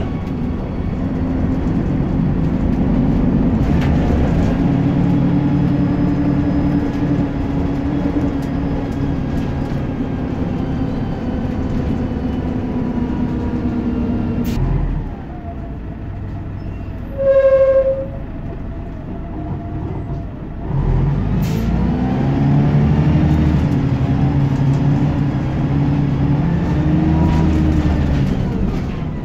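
Scania single-deck bus's diesel engine heard from inside the saloon, working through the gears with its pitch rising and falling. About halfway through the engine note drops away for several seconds, and a short, loud single beep sounds. About 21 s in the engine pulls hard again.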